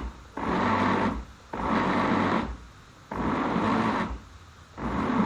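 Electric blender pulsed on and off, four bursts of about a second each with short pauses between, chopping bananas in water for a thick smoothie.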